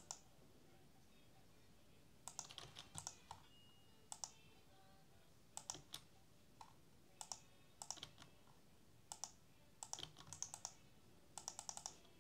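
Computer keyboard keys being typed in short bursts of a few clicks each, with quiet gaps between the bursts.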